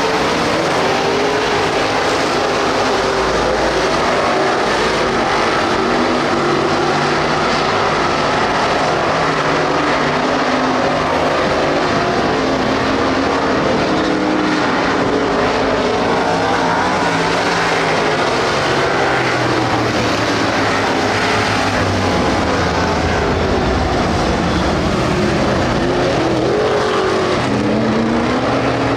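A field of street stock race cars running laps on a dirt oval, several engines at full throttle overlapping, their pitch rising and falling as the cars go through the turns and pass.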